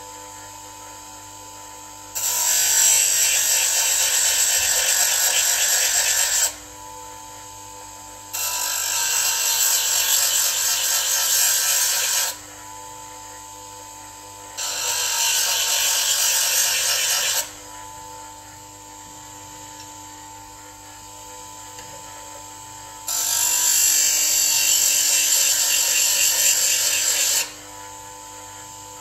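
Bench grinder running with a steady hum, and four times a steel tool edge is held against the spinning grinding wheel, each a loud grinding hiss lasting a few seconds.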